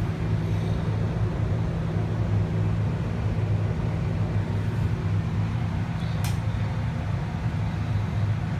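Steady low hum inside an enclosed Centennial Wheel gondola during the ride, with one brief high tick about six seconds in.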